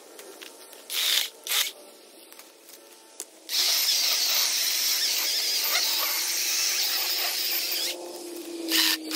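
DeWalt 12-inch cordless electric chainsaw. It gives two short bursts about a second in, then runs steadily while cutting into a log for about four and a half seconds, with one more short burst near the end.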